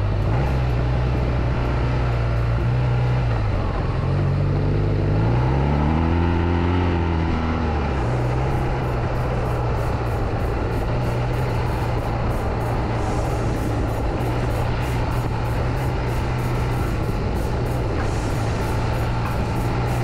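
BMW R1200GS boxer-twin motorcycle engine running under way on a dirt trail. Its note drops a few seconds in, rises and falls again over the next few seconds, then holds steady.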